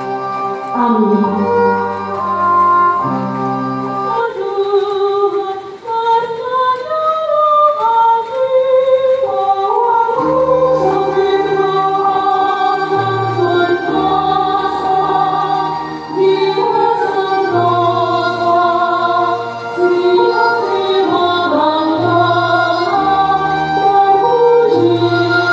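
A woman sings a slow song through a PA over sustained organ-like keyboard chords, with a violin also playing. A short instrumental passage opens, and the voice comes in about four seconds in.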